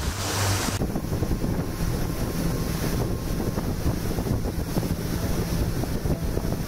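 Motor of a small wooden riverboat running steadily under way, with wind buffeting the microphone and water rushing past the hull.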